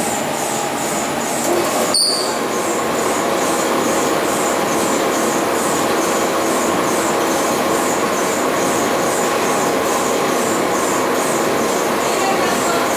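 Industrial washer-extractor running: a loud, steady mechanical rumble and hiss with a fast, regular pulsing on top, and a single sharp click about two seconds in.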